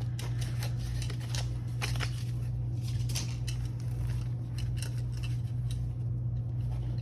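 Paper and plastic being handled: irregular rustles and small clicks as budget envelopes and a binder are moved about, over a steady low hum.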